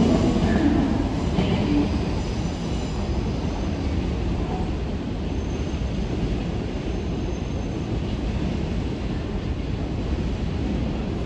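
Shinkansen train moving along the platform: a steady rumble of wheels on the rails and running gear, a little louder in the first two seconds.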